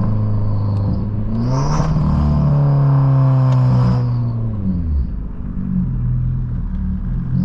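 Straight-piped, turbocharged Ford Fusion engine idling, then revved once about a second and a half in, held for about two seconds and let fall back to idle. A thin, steady high whistle from the turbo rides over the exhaust.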